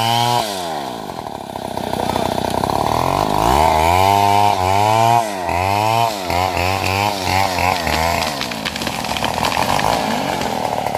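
Stihl MS070 two-stroke chainsaw engine dropping off full throttle, then revved up again and blipped up and down several times in quick succession, before settling to a lower, rapidly pulsing run near the end.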